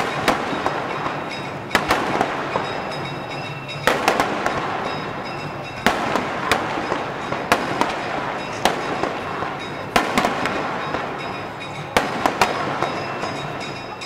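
Aerial firework shells bursting overhead: a sharp bang every second or two, each followed by an echoing rumble and crackle from the breaking stars.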